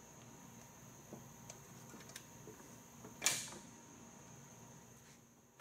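Faint small clicks of a pressure-gauge hose's quick-connect fitting being worked onto a tractor loader valve's hydraulic coupler, then one louder metallic click about three seconds in as the coupling goes on.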